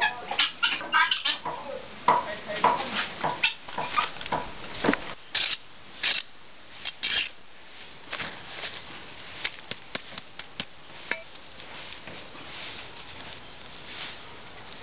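Chickens clucking amid a run of sharp clicks and clatters. Partway through this gives way to quieter scraping and ticking as a soil-and-compost mix is scooped with a small hand trowel into pots.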